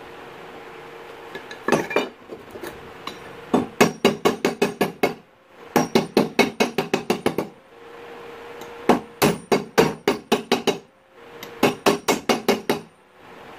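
Claw hammer striking metal clamped in a bench vise, in quick runs of blows about six a second. The runs last a second or two each, with short pauses between them.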